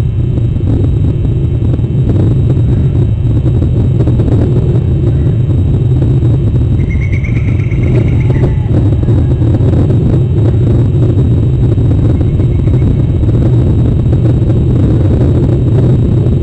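Steady low rumble of wind on an outdoor camera's microphone. A faint, higher call sounds briefly about seven seconds in.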